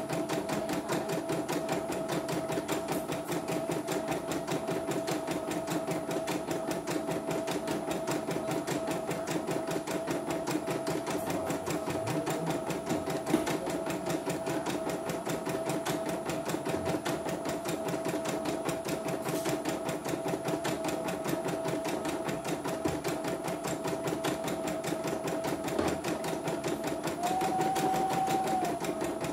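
CNY computerised home embroidery machine stitching a test design: a rapid, even needle clatter over a steady motor whine. The whine rises in pitch and gets a little louder for about a second and a half near the end. The machine is running normally again after a repair for a system error.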